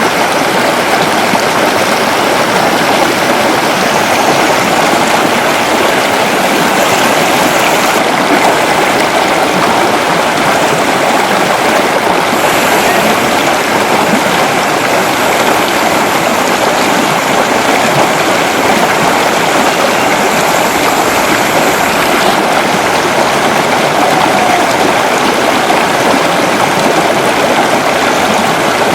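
Steady, loud rush of flowing water, with no breaks or single events.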